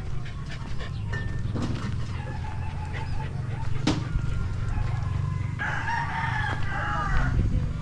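A rooster crowing, one long drawn-out crow about two-thirds of the way through, with fainter calls before it, over a steady low rumble.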